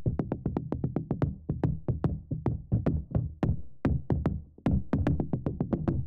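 Tap shoes striking the floor in a fast, continuous tap-dance rhythm of about seven taps a second, picked up through the floor by a LOM Geofon geophone contact microphone. The taps come through as low, weighty knocks with little of the bright click at the top.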